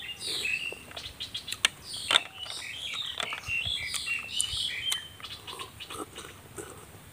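Close-up eating sounds of spicy cooked snails: squeaky sucking and wet lip clicks as the meat is picked out with a toothpick and sucked from the shells, with two sharper clicks about two seconds in.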